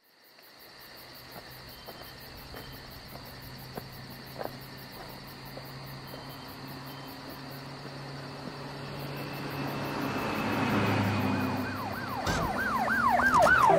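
Intro of an electronic dance track: a low steady drone with faint clicks swells into a rising whoosh, then fast siren-like wailing sweeps, a few per second, build to the start of the beat.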